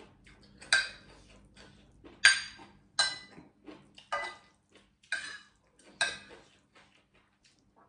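Metal spoon clinking and scraping against a ceramic plate while scooping food: about six sharp clinks, each with a short ring, spaced roughly a second apart, with fainter scrapes between.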